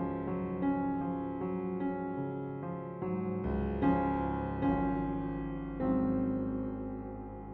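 Background music: a piano or electric-piano track with sustained chords and a gentle, regular melody.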